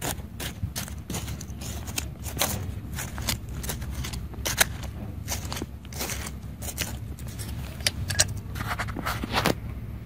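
Small hand trowel scraping and digging into dry, stony soil, with many irregular gritty scratches and clicks over a steady low rumble.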